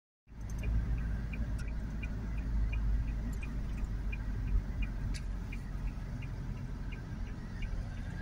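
Car cabin noise while driving: a steady low rumble of engine and tyres on the road, with a faint light ticking about three times a second.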